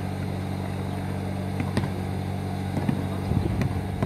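Steady low mechanical hum, with a few sharp knocks from the basketball game on the concrete court, several close together near the end.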